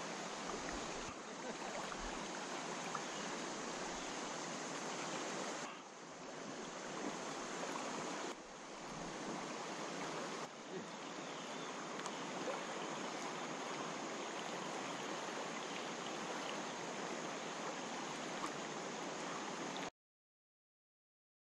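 Steady hiss of river water rippling around a kayak, with a few abrupt jumps in level. It cuts off to silence near the end.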